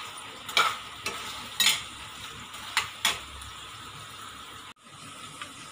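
Steel spoon stirring and scraping soya balls in a black kadai, with about five sharp scrapes in the first three seconds, over a steady sizzle of the balls frying in soy sauce, chutney and ketchup.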